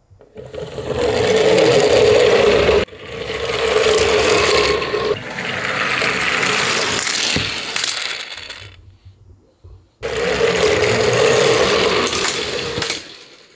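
Die-cast toy garbage trucks rolling down a plywood slope, their small wheels on the wood making a loud rattling rumble. It comes in four stretches, each starting or stopping abruptly, with a gap of about a second and a half shortly after the middle.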